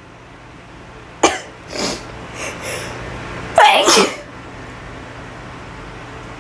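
A woman sneezing twice, a sharp sneeze about a second in and a louder, longer one near the middle, with quick breaths in between.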